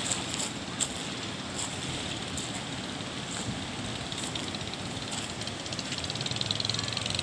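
Footsteps crunching on a beach of coral and pebble rubble, roughly once a second, over a steady rush of wind and sea.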